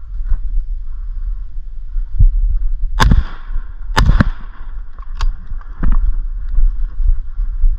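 Two shotgun shots about a second apart, a few seconds in, followed by a few fainter knocks, over a steady low rumble.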